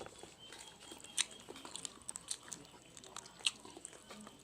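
Close-up chewing and biting on leftover bony chicken: wet mouth clicks and small crunches, with two sharper crunches about a second in and at about three and a half seconds.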